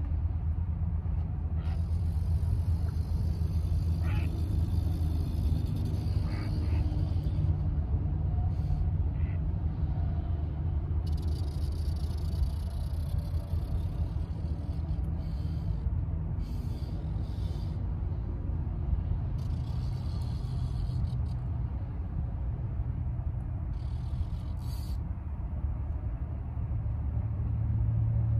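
Steady low rumble of wind buffeting the microphone, with several short stretches of a high hiss.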